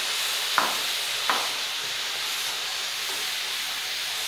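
Rice, peas and diced carrot sizzling in a hot non-stick frying pan as a wooden spatula stirs and breaks up the rice, with two short knocks about half a second and just over a second in.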